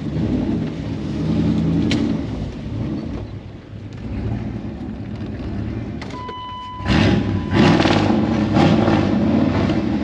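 Mud truck's engine running unevenly, sagging about a third of the way in. A brief steady beep sounds about six seconds in, then the engine comes back in loud, revving, from about seven seconds in.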